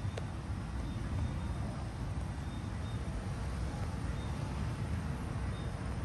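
Gas fire pit burning with a steady low rumble of flame, with a single small click just after the start.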